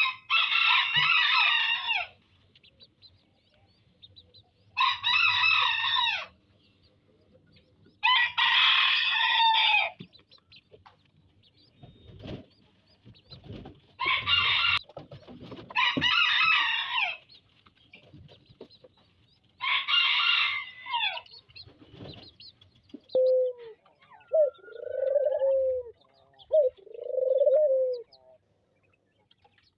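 A rooster crowing six times, each crow about one to two seconds long, with pauses between. Near the end a dove coos several times, lower and softer.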